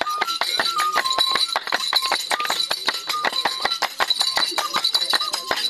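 Dance music played live: a fast, even beat of sharp percussive strikes with metallic jingling, over a piping tune of short held notes that step between two pitches.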